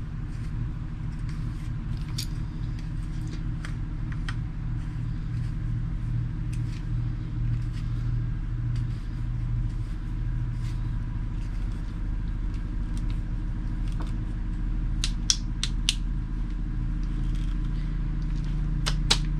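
A steady low hum, with scattered light clicks and taps from a plastic battery-powered boat navigation light being handled as its AAA batteries go in and its end cap is screwed on. A quick run of sharper clicks comes about three-quarters of the way through, and another near the end.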